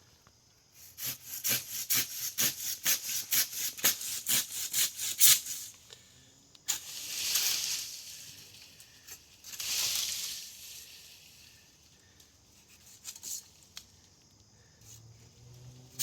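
Hand saw cutting through wood in quick strokes, about three a second, then two slower, longer strokes.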